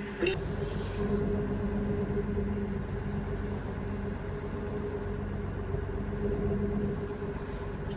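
Tour boat's engine running with a steady hum under the rush of water. A short hiss comes about a third of a second in.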